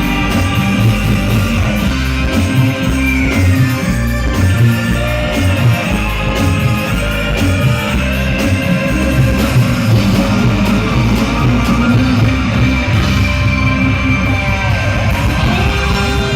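Loud rock-style music with drums, heavy bass and guitar, and a singing voice, played over a sound system for a sound check.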